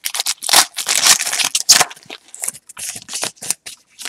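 Foil wrapper of a baseball card pack crinkling as it is pulled open and the stack of cards slid out: a dense run of crackly rustles for about two seconds, then shorter separate rustles.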